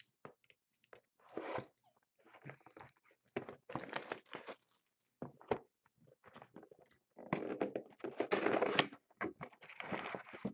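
Trading-card packaging being torn open and crumpled by hand: plastic wrap, foil packs and cardboard rustling and tearing in several irregular bursts, the longest and loudest near the end.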